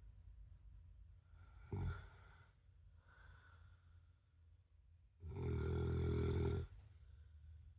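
A man snoring in his sleep: a short snore about two seconds in, then a longer, louder snore lasting about a second and a half near the end, with quiet breathing between.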